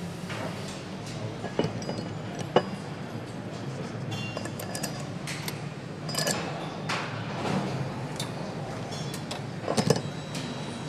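Steel engine parts clinking and clicking as a motorcycle crankshaft and connecting rods are handled in an assembly fixture, over a steady factory hum. A quick cluster of sharp metallic clicks comes near the end, as a tightening spindle comes down onto the connecting rod.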